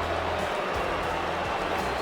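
Steady stadium crowd noise from the football match.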